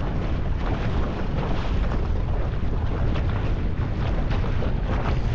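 Mercury outboard motor running as an aluminium tinny moves across choppy water, with wind rumbling on the microphone.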